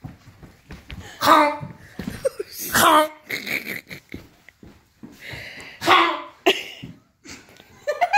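Loud wordless vocal outbursts from people, three main ones about a second, three and six seconds in, with scattered knocks and handling noise between them.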